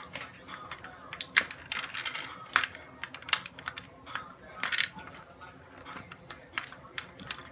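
Close handling noise of a phone and its light mount being fitted together by hand: a series of sharp plastic clicks and knocks at irregular intervals, with a few louder knocks among them.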